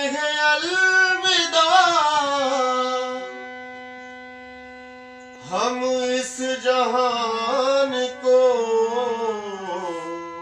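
Harmonium holding steady sustained chords while a man sings a wordless, gliding melodic line over them in two long phrases, the first fading away before the second begins about halfway through.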